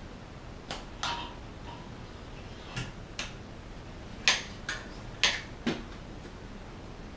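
Sharp metallic clicks and clinks, about eight at irregular intervals, as a hex key and the bicycle's stem parts knock together while the stem is fitted on the steerer tube. The loudest click comes about four seconds in.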